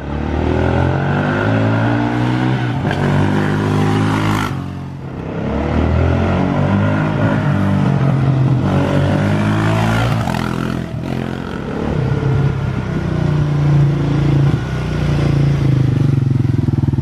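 Yamaha Raptor 660 quad's single-cylinder four-stroke engine revving under acceleration, its pitch climbing and dropping repeatedly through the gear changes. It grows quieter about four to five seconds in as the quad rides off, then louder again as it comes back.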